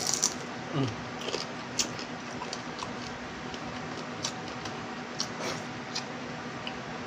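Close-up eating sounds of a person chewing and sucking on small cooked crabs: scattered sharp, wet mouth clicks and crunches of shell, over a low steady hum.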